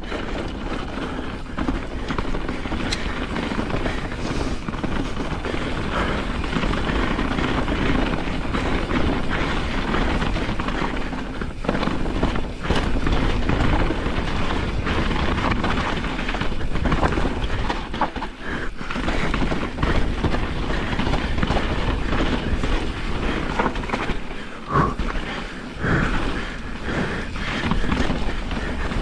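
Pivot Firebird enduro mountain bike descending a dirt singletrack, heard from a chin-mounted action camera. The tyres run continuously over the ground and the bike rattles over bumps, with wind rumbling on the microphone. A few short squeaks come near the end.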